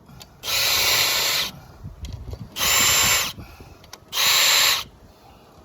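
Power drill with a self-centering bit drilling pilot holes through a gate hinge into wood, in three short bursts, the first about a second long and the next two shorter.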